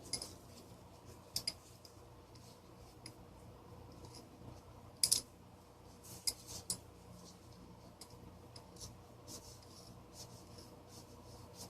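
Faint, scattered clicks and taps of a steel screwdriver against the fan motor's metal parts, the sharpest about five seconds in, over a faint steady hum.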